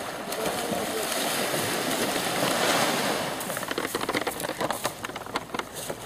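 Sea surf in a storm: a wave rushes in and swells to its loudest about halfway through, then breaks into a fast crackle of clicks as the water washes back.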